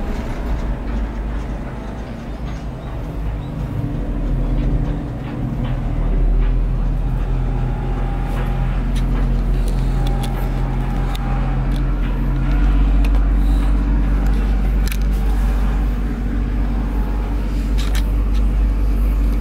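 Cable-car gondola riding along its haul rope, heard from inside the cabin: a steady low rumble and hum with scattered light clicks and knocks, growing louder about six seconds in and again about halfway through.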